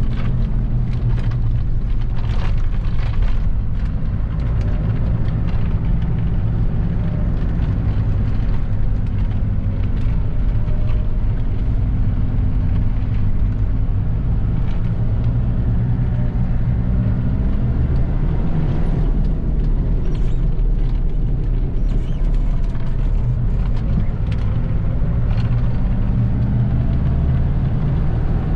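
Mitsubishi Pajero's 4D56 turbo diesel engine running while the vehicle is driven, its pitch rising and falling a few times with engine speed.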